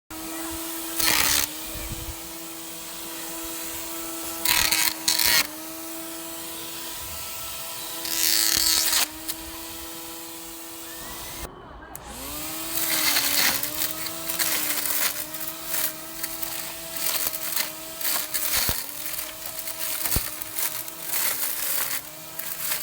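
Small cordless lawn mower's electric motor running with a steady high whine, cutting grass. Each time the blade bites in, there is a burst of rough cutting noise and the whine sags in pitch. Just before halfway the motor stops for a moment and spins back up, then the cutting bursts come quickly one after another.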